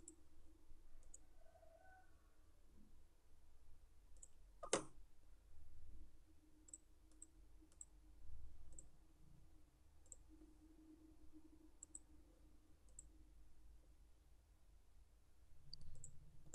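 Faint computer mouse clicks, a dozen or so scattered sparsely, one clearly louder about five seconds in, over a faint low hum.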